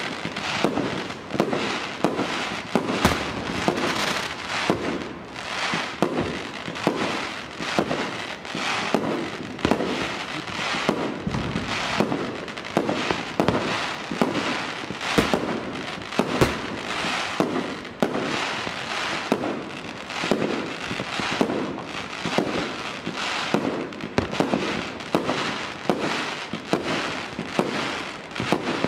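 Many fireworks and firecrackers going off nonstop: an unbroken run of bangs, cracks and crackling, with several sharp loud reports every few seconds.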